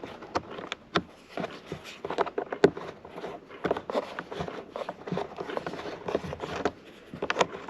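Irregular clicks, knocks and scrapes of hard plastic car interior trim being worked loose and handled by hand around the speaker cover.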